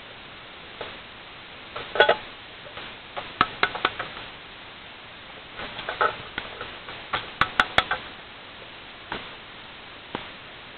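Old mechanical wind-up alarm clock being wound and handled: sharp metallic clicks of the winding key and ratchet in short irregular bursts, with light knocks from the clock being handled.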